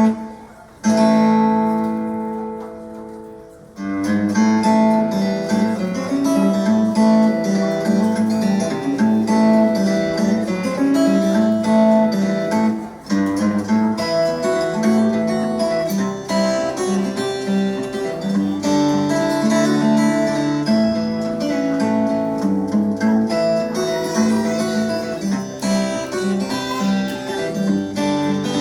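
Acoustic guitar music, strummed chords. One chord rings out and fades, then steady rhythmic strumming starts about four seconds in.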